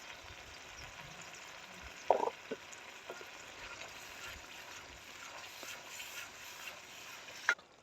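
Mashed tomatoes and ground spices sizzling gently in a cooking pot, a steady faint crackle, with a sharp knock about two seconds in and a few lighter ticks. The sizzle cuts off suddenly near the end.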